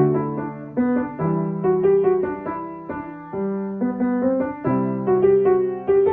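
Piano playing a melody of struck notes that ring and fade, over held lower chords.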